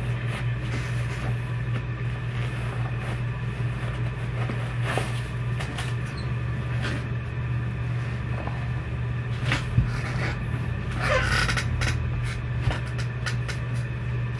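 Scattered light knocks, clicks and a short rustle, typical of handling and moving about in new sneakers, over a steady low hum.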